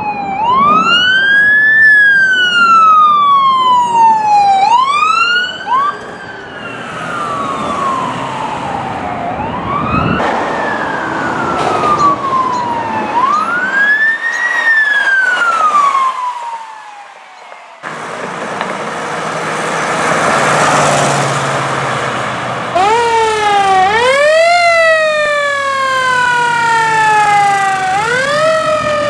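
Emergency vehicle sirens wailing, each tone rising and falling slowly over a few seconds, from several responding vehicles one after another. Partway through the siren drops out for a few seconds of loud engine and road noise from a passing truck, then a siren sweeps up and down again more quickly.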